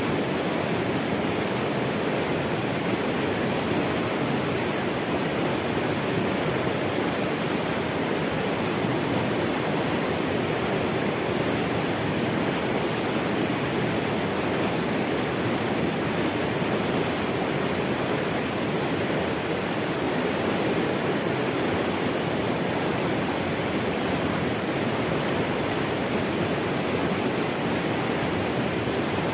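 Running water rushing in a steady, unbroken flow.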